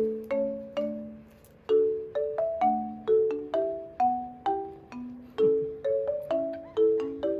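Background music: a light, bouncy tune on a marimba-like mallet instrument, its struck notes and chords ringing briefly and fading, about two to three notes a second.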